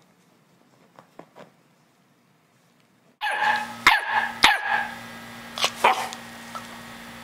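Chocolate Labrador puppy barking: a string of short, sharp barks that starts suddenly about three seconds in, after a few faint soft rustles.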